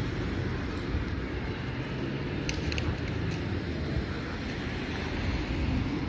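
Steady low rumble of distant street traffic, with a few faint ticks about halfway through.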